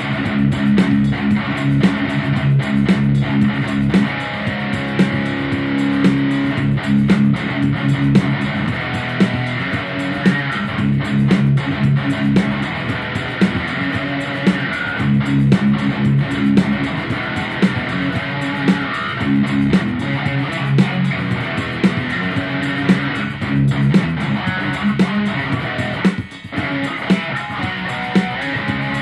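Background guitar music with bass notes and a steady beat.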